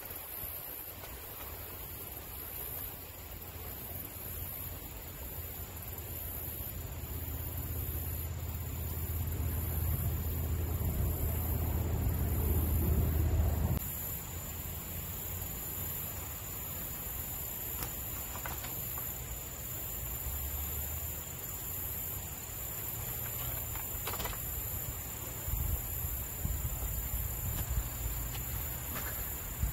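Steady high insect chorus, with a low wind rumble on the microphone that builds and cuts off suddenly about halfway through.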